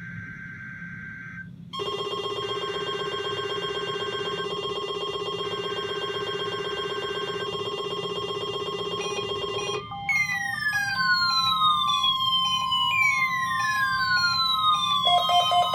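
NOAA Weather Radio required weekly test alert signals. The last of the digital SAME header data bursts ends about two seconds in. A loud, steady, buzzy alert tone follows for about eight seconds. It then changes to a siren-like sweep that falls in pitch and repeats about every two and a half seconds over a steady tone, with a pulsing lower beep joining near the end.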